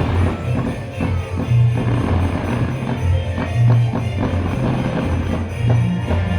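Music accompanying a fireworks show, with a heavy bass line.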